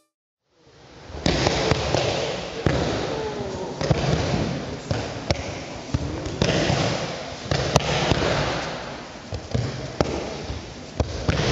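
Irregular thuds and slaps of aikido partners falling and stepping on tatami mats over a steady room noise, a dozen or more knocks with one sharper crack about two-thirds of the way through.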